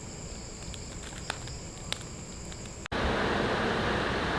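Insects chirring steadily with a high, even tone and a couple of faint ticks. About three seconds in it cuts to a louder, steady rushing noise.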